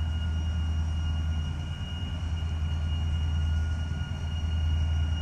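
Steady low engine rumble, unchanging in pitch, with a faint constant high tone over it.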